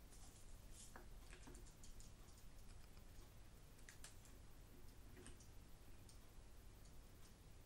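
Faint, scattered small clicks and ticks of sequins being picked out of a small bowl and dropped into the neck of a plastic bottle.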